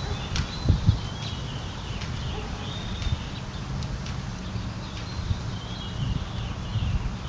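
Low, gusty rumble of wind on the microphone, with small birds chirping in the background.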